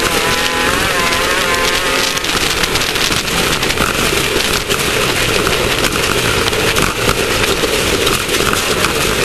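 Class 1600 off-road race car's air-cooled Volkswagen flat-four engine running hard under a dense rattle and rumble from the car driving off-road; the engine note wavers up and down in the first two seconds.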